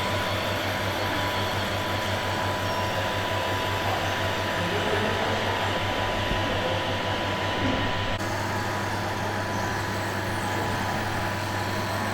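Radio-controlled scale construction machines and trucks running, with a pulsing diesel-like engine rumble that turns into a steady drone about eight seconds in, over a constant high whine.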